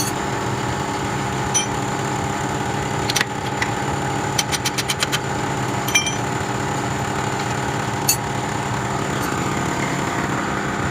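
A motor running steadily with a constant hum, with sharp metallic clicks and taps over it, including a quick run of about eight clicks halfway through.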